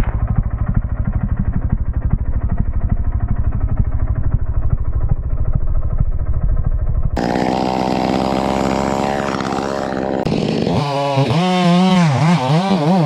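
Chainsaw engines running in separate clips: first a rapid, muffled pulsing run, then after a cut about seven seconds in a steady engine note, and near the end the saw revved up and down repeatedly.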